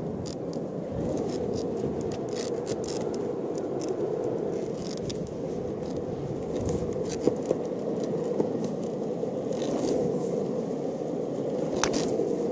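Longboard wheels rolling steadily over asphalt, with scattered scrapes and a few sharp knocks as the wooden land paddle pushes against the ground.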